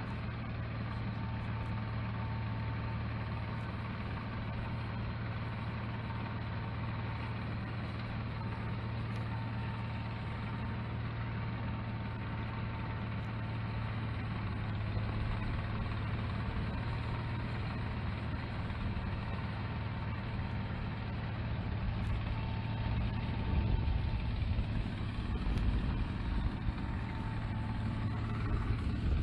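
Engine of a swather converted into a snowblower, running steadily while it works through snow, with a thin steady whine above the engine drone. It gets louder and rougher near the end.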